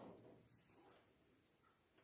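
Near silence, with a faint, brief handling noise right at the start.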